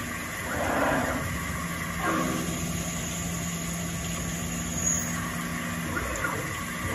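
Brother TC-227 CNC mill's spindle running with a steady hum while a drill feeds into the plate in one continuous pass without pecking; the hum drops away about six seconds in.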